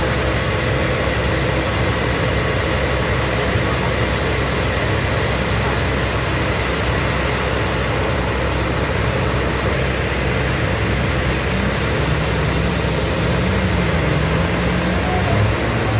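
Sawmill machinery running steadily: a constant low hum under an even mechanical noise.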